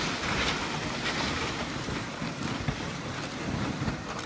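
Dog sled gliding over snow: a steady rushing hiss of the runners on the snow, mixed with wind across the microphone, swelling a little in the first second or so.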